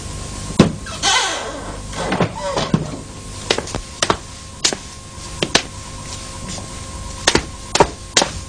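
A wooden door knocking shut with a scrape, then a run of sharp knocks about two a second.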